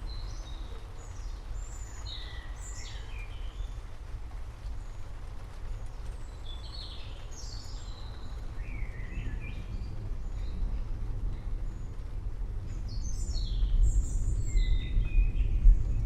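Several small birds chirping in a forest over a low rumble of distant thunder, which swells toward the end.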